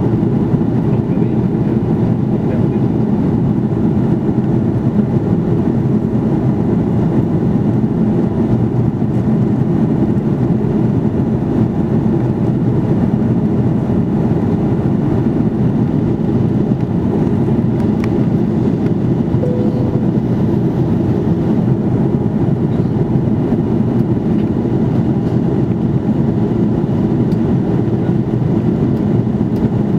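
Steady cabin noise of an Airbus A330-300 in flight: an even rumble of engines and airflow, heard inside the cabin from a rear window seat.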